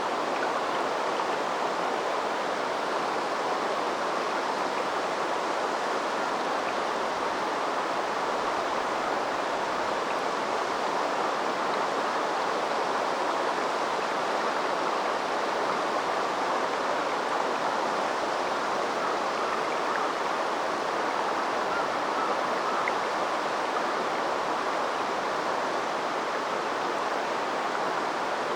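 River water flowing in a steady, even rush, with no break or change.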